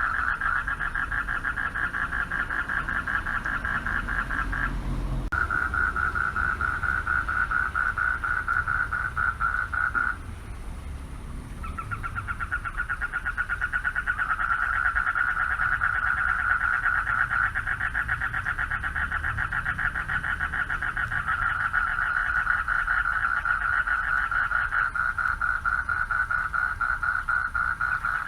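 Chorus of male frogs calling for mates from a pond: continuous rapid pulsing calls that drop out briefly about five seconds in and again for over a second around ten seconds. From about twelve seconds a higher-pitched second caller joins in.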